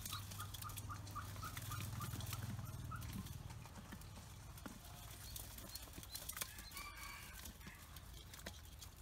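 Ducklings peeping in a quick run of short high notes in the first three seconds, with scattered clicks of beaks pecking feed off a metal bowl, and one louder call about seven seconds in. A low hum sits underneath at first and fades after about three seconds.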